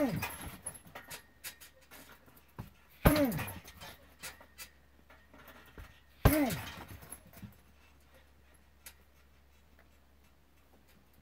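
A heavy punching bag taking three hard kicks about three seconds apart, each a loud smack with a short falling grunt, followed by light rattling of the bag's hanging hardware. After the third kick it goes quiet.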